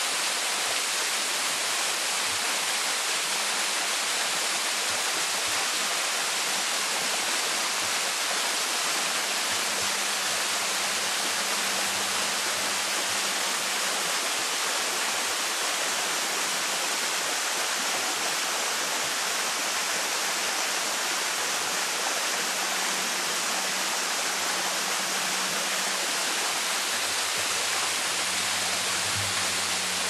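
Waterfall water splashing down onto rocks: a steady, even rushing hiss.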